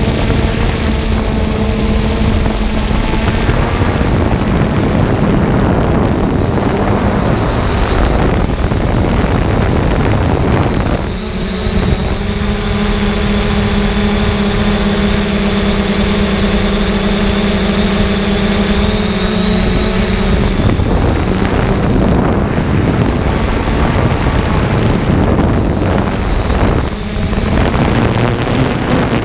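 Quadcopter drone's propellers whirring in flight, heard through its own onboard camera along with heavy rushing wind on the microphone. A steady hum from the rotors comes through more clearly for about ten seconds in the middle.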